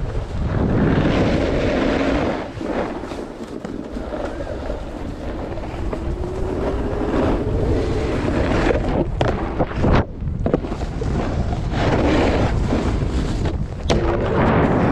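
Wind buffeting the microphone over the rush of breaking surf, swelling and easing, with a brief lull about ten seconds in.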